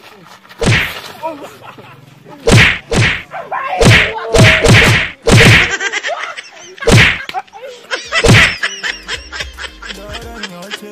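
A run of about nine loud whacking blows in a staged fight, irregularly spaced over about eight seconds. Music starts near the end.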